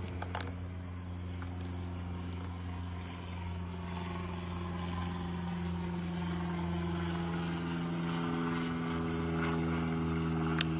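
Steady low mechanical drone of an engine or motor that slowly grows a little louder, with a few light clicks about a second in and near the end.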